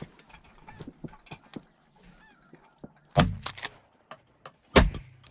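Shotgun fired twice, two sharp, loud reports about a second and a half apart, with faint goose honking before them.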